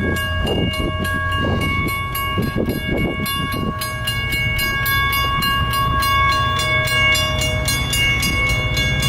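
A railroad crossing signal ringing rapidly and evenly, its tones held steady over the low rumble of a slow-moving or stopped train. There are a few knocks in the first few seconds.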